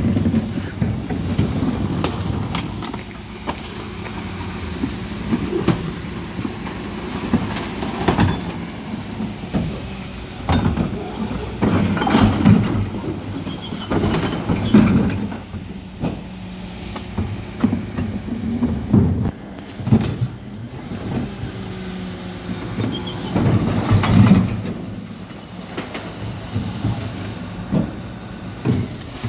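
Mercedes-Benz Econic refuse truck with a Terberg Olympus rear-loader body, its diesel engine and hydraulics running as the rear bin lift raises and tips two blue wheelie bins of mixed recycling. Repeated clatters and knocks of the bins on the lift and the recycling dropping into the hopper, loudest about twelve, fifteen and twenty-four seconds in.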